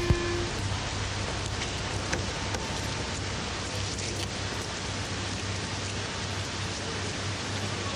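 A steady, even hiss with a low, constant hum underneath.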